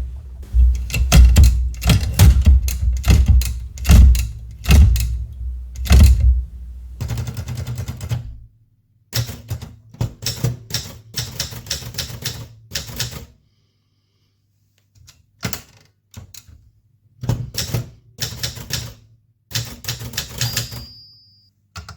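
Old manual typewriter being typed on: runs of sharp key clacks in bursts, with short pauses between words and lines and one longer pause about two-thirds of the way through.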